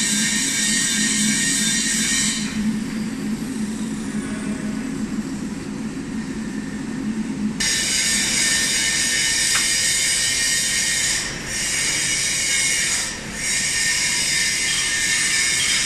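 Steady machine noise from a large welding positioner's electric gear drive: a dense hiss with a faint steady whine. About two and a half seconds in it drops to a lower hum, then returns suddenly about eight seconds in, dipping briefly twice near the end.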